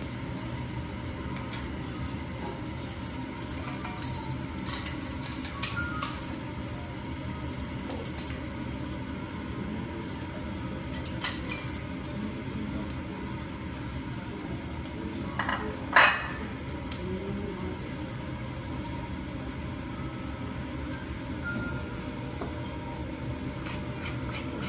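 Restaurant background hum with scattered light clinks of dishes and utensils on a plate, the loudest a sharp clink about two-thirds of the way through.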